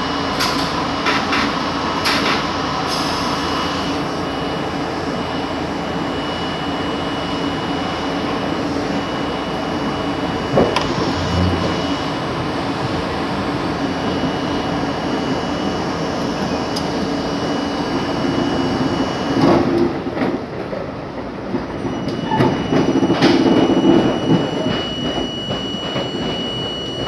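R32 subway car pulling out of a station and running along the track, heard from inside the front car: a steady rumble of wheels on rail with a steady high-pitched tone over it. Clicks and knocks over the rail joints come more often near the end.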